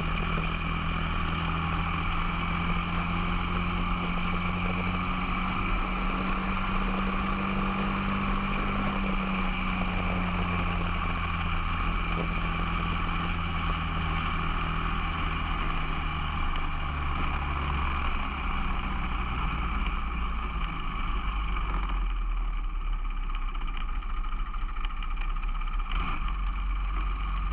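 Onboard Briggs & Stratton 206 four-stroke single-cylinder kart engine running at part throttle, its note falling from about nine seconds in and dropping lower again near twenty seconds as the kart slows, with wind and tyre noise on the onboard microphone.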